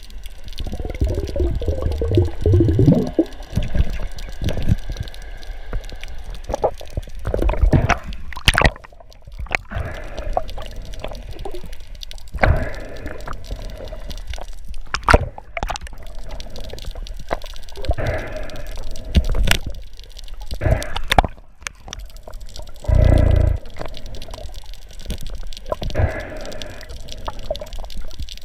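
Water sloshing and bubbling around a spearfisher's camera, broken by irregular splashes and knocks, with one heavy thump about two-thirds of the way through.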